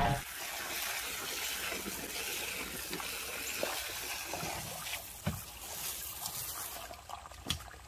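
Water running out of the open end of a perforated PVC French drain pipe and splashing onto gravel, a steady trickling splash with two short knocks near the end. The drain is carrying the water through to its outlet.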